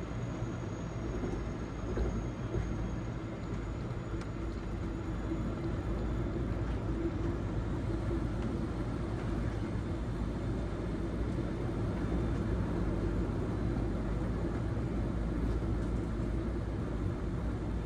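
Steady cabin noise inside a Boeing 777-300ER coming in to land: a low rumble of engines and airflow that grows slightly louder, with a faint click about two seconds in.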